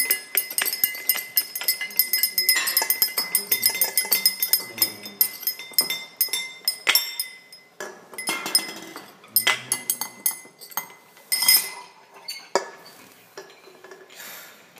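Dishes, glasses and cutlery clinking, many sharp ringing clinks in quick succession that grow sparser and fade away toward the end.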